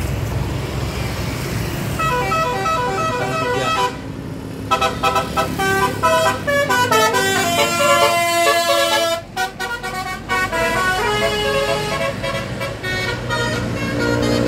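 Bus 'telolet' basuri musical horn playing tunes over the bus engine running. First come short repeated toots, then a longer run of notes stepping up and down, a brief break, and another run of notes.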